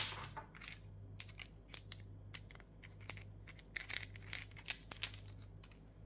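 Faint, scattered small clicks and light scrapes of a metal padlock and a small precision screwdriver being handled, as the screwdriver is brought to the lock's grub screw; one sharper click right at the start.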